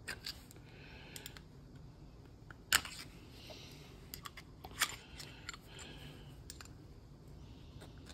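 Light, scattered clicks and taps of a thin metal pick tool and small parts against a brake proportioning valve body as it is handled during assembly, with two sharper clicks about two seconds apart near the middle.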